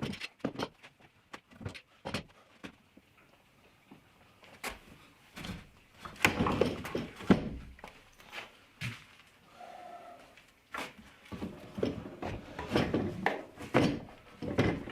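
Irregular knocks, clunks and clatters of objects being handled and set down, busiest in the middle and again near the end.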